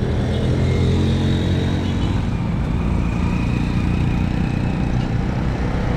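Motor vehicle engine running close by, a steady low drone over street traffic noise.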